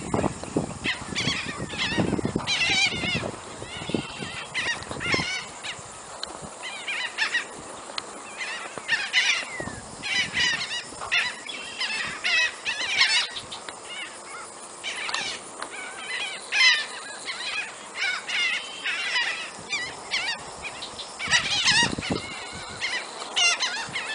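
A large flock of gulls overhead, calling without pause: many overlapping squawks and cries. A few low thumps come in the first five seconds.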